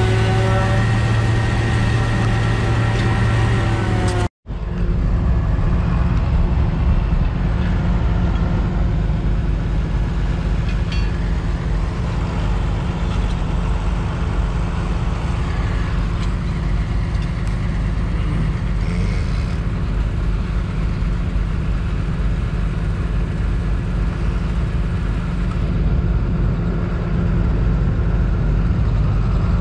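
Heavy farm machinery engine running steadily at working speed, with a steady whine over it for the first four seconds. The sound cuts out abruptly for a moment about four seconds in, then the engine carries on without the whine.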